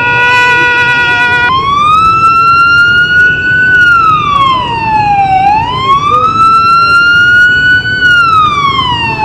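Ambulance's electronic siren, loud: a steady held tone for about a second and a half, then a slow wail that rises and falls twice, each sweep up and down taking about four seconds.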